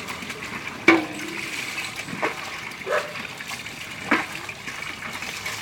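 Water poured and splashed over a Rottweiler during a bath, a steady wash of running water broken by about four sharp splashes as mugfuls hit the dog's coat.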